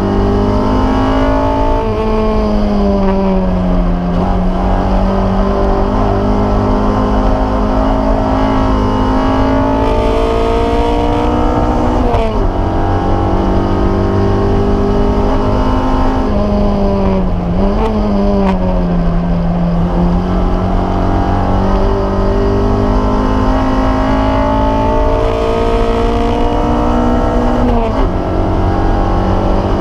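Toyota MR-S's swapped-in 2AR-FXE 2.5-litre four-cylinder engine heard from inside the cabin, running hard at high revs with its note slowly rising under acceleration. The pitch drops sharply at an upshift about 12 seconds in, dips briefly and recovers around 18 seconds, and drops again near the end.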